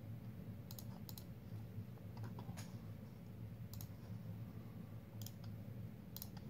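Computer mouse buttons clicking: about eight sharp clicks, several in quick pairs, as text is selected, copied and pasted through right-click menus. A steady low hum runs underneath.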